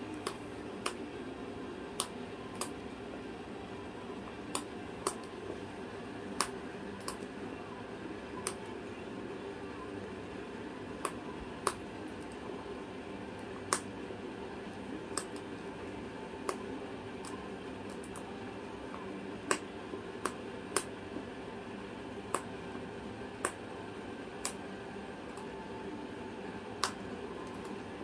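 A cockatoo chewing a red toy ring with its beak: sharp, irregular clicks and cracks, roughly one a second, over a steady background hum.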